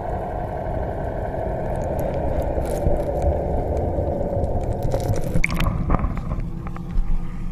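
Muffled, steady underwater rushing heard through a waterproof action-camera housing as it is hauled up through the sea. About five seconds in it breaks the surface and the sound changes abruptly to splashes and knocks against the camera case.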